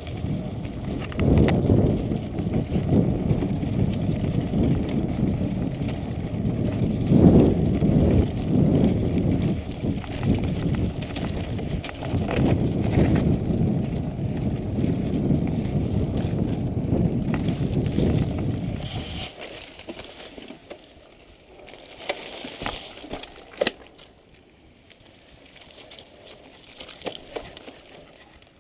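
Mountain bike riding fast over a sandy dirt trail, wind buffeting the camera microphone in a heavy low rumble, with rattles and knocks from the bike over the bumps. About two-thirds of the way through the rumble falls away, leaving quieter ticks, rattles and crackles of the bike rolling along the trail.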